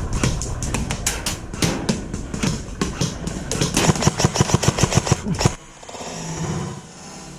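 Airsoft gunfire: a fast run of sharp shots that comes quicker and more regularly in the last couple of seconds, then cuts off suddenly about five and a half seconds in.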